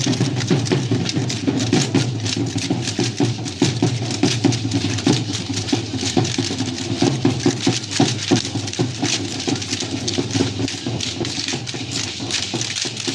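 Danza guayulera music: a steady drum beat under the dense, rhythmic clatter of the dancers' stamping steps.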